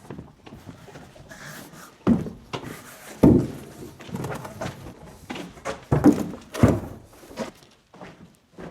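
A series of knocks and thuds: four loud, heavy thumps with lighter clatter and clicks between them.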